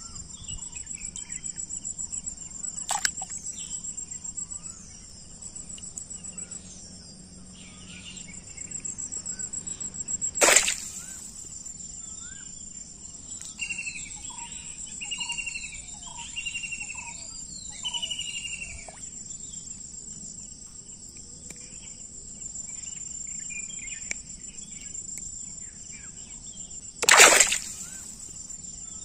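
Steady high, pulsing trill of insects in an outdoor chorus, with birds calling over it, including a run of about five whistled, falling calls in the middle. Two loud sudden noises break in, about ten seconds in and again near the end.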